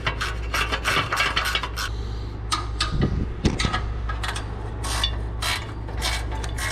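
Sheet-metal exhaust heat shield being worked into place and bolted up under the vehicle: a string of light metallic clinks, taps and scrapes over a steady low hum.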